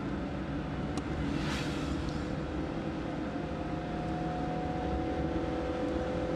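Mazda MX-5 Miata's four-cylinder engine and road noise heard from inside the cabin, running steadily while driving, with a single click about a second in and a brief hiss just after.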